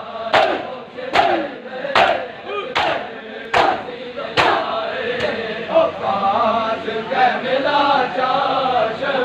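A crowd of men doing matam, beating their chests in unison: sharp slaps about 0.8 s apart, six of them over the first four and a half seconds, with group chanting between them. After that the slaps stop and the men go on chanting a mourning chorus together.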